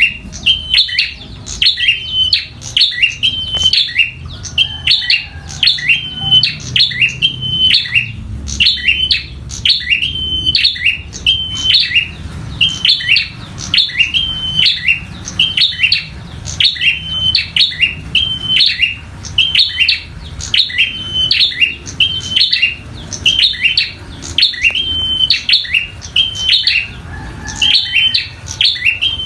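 Prinia (prenjak) calling loudly and insistently in the aggressive 'tarung' fighting style, a rapid run of sharp high chirps repeated about once or twice a second without a break.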